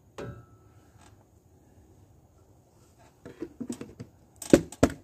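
Sharp plastic clicks and taps from handling a container of buffing compound and its lid, a few scattered ones and then a quick cluster of louder clicks near the end.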